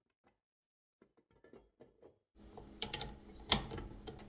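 Kitchen items being handled on a counter: scattered light clicks at first, then sharper knocks and clatters over a low steady hum that comes in about halfway through.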